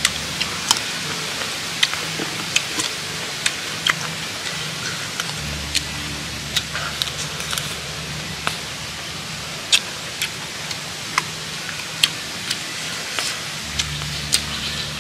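Eating with the hands: irregular sharp clicks of chewing and lip-smacking over a steady hiss.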